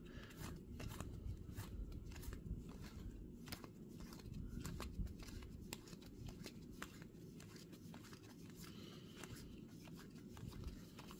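Baseball trading cards being flipped through by hand, each card slid off the stack with a faint flick, irregularly several times a second.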